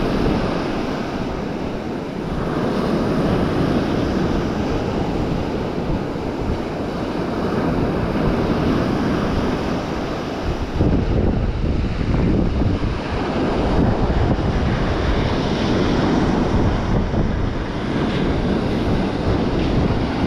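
Ocean surf breaking and washing up a sandy beach, with wind buffeting the microphone. The low wind rumble gets heavier about halfway through.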